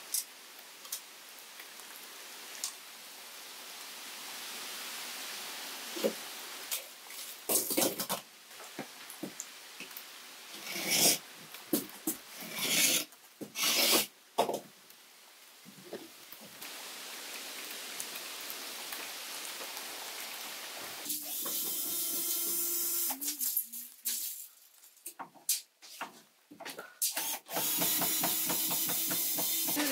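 Fiberglass insulation batts rustling and crunching as they are handled and cut under a wooden board, with a run of loud scrapes and knocks in the first half. A steady pitched hum comes in about two-thirds through and again near the end.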